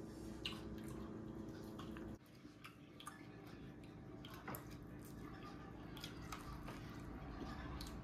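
Faint eating sounds: soft chewing and small clicks and smacks of food being handled at the table, over a low steady hum that cuts off about two seconds in.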